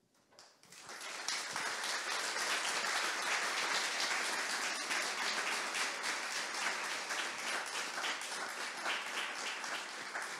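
Audience applauding: many hands clapping at once, swelling in over the first second or so and then holding steady.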